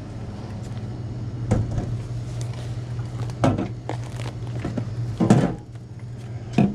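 Four knocks as items are handled and set down on a self-checkout's stainless-steel counter, the third the loudest, over a steady low hum.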